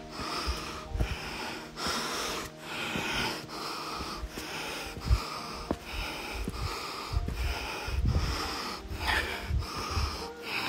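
A hiker breathing hard and fast close to the microphone, quick breaths in and out in a steady rhythm, with scattered low thumps.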